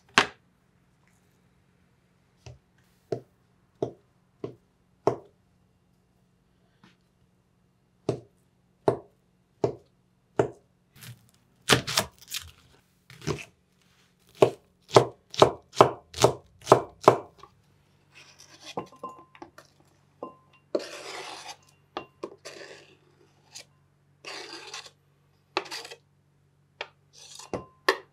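Kitchen knife cutting on a wooden cutting board, with scattered single cuts at first and then a quicker run of chops while slicing a red onion. This is followed by a few longer, rougher scraping sounds and a few more knocks near the end.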